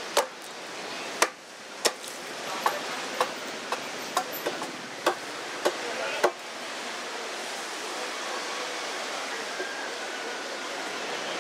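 Wood being chopped and shaped by hand with a bladed tool: about a dozen sharp strikes over the first six seconds. The strikes then stop, leaving a steady rushing background noise.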